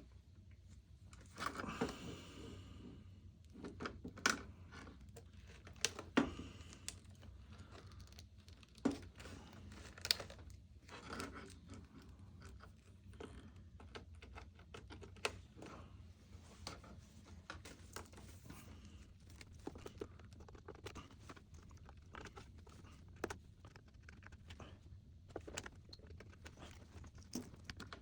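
Scattered small clicks, taps and rustles of computer parts being handled, with a brief rustle of packaging or cables about two seconds in.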